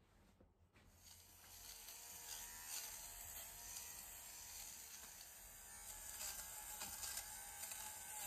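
Handheld electric lint remover (fabric shaver) buzzing faintly as it is run over a fleece garment.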